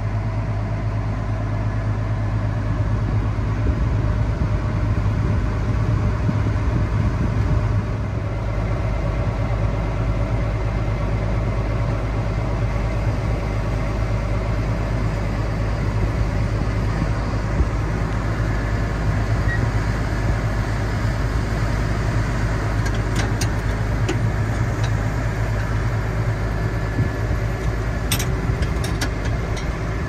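Steady engine drone of farm machinery heard from inside a grain truck's cab as a Case IH combine works alongside to unload corn into the truck. A few short clicks sound near the end.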